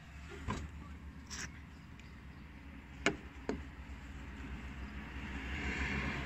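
Mercedes 190 D diesel engine idling steadily with a fine, even clatter, and a few sharp clicks over it.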